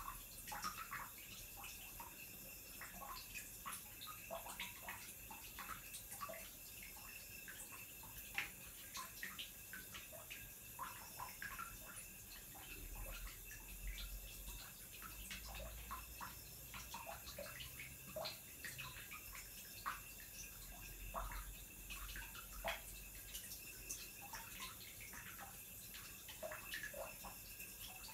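Faint, irregular small wet clicks and taps as fingers press and rub damp temporary-tattoo transfer paper against wet skin, over a low steady hiss.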